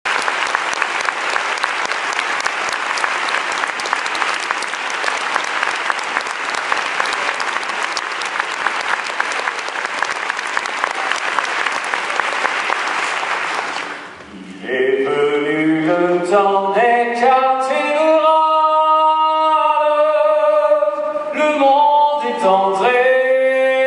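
Audience applauding steadily; the clapping dies away about fourteen seconds in, and a man begins singing in French, starting low, climbing, and holding long notes.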